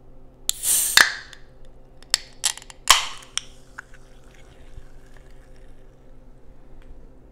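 Aluminium soda can being opened: a short hissing rush of escaping carbonation with a sharp pull-tab crack about a second in, then several more tab clicks and a second brief hiss about three seconds in.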